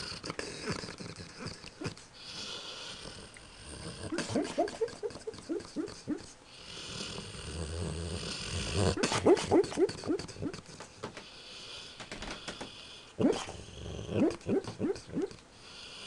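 Sleeping dog dreaming: three runs of quick, muffled yips and whimpers, about five a second, beginning about four, nine and thirteen seconds in, with snoring between them.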